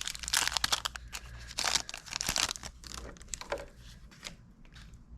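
A foil Pokémon booster pack wrapper being torn open and crinkled by hand, a run of sharp rustling tears that thins out to quieter handling about three and a half seconds in.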